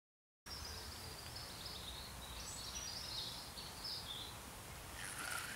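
Outdoor riverside ambience: a small songbird singing a run of high chirps and short trills over a steady background rush.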